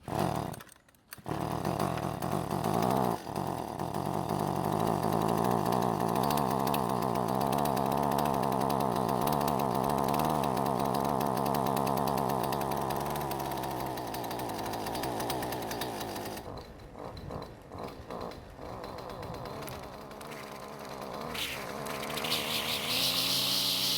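Two-stroke Husqvarna string trimmer engine running at high throttle, then dropping back to an uneven, sputtering idle when the throttle is let off, and rising again near the end. The trimmer's fault is that it stalls when given too much throttle and then released.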